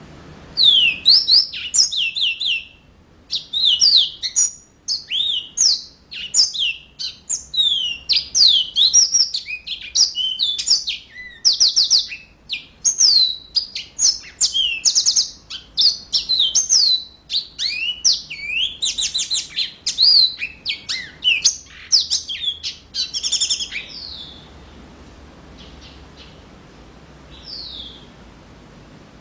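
Yellow-fronted canary singing a long, fast run of varied high whistled notes and trills. The song stops about 24 seconds in, and one short note follows near the end.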